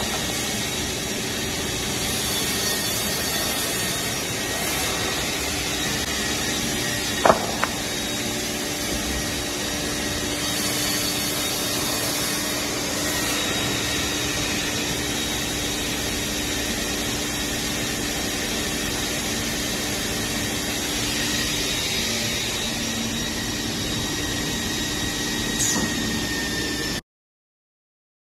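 Steady hum and hiss of an industrial optimizing cross-cut saw line running, with a sharp knock about seven seconds in and a smaller one near the end. The sound then cuts out.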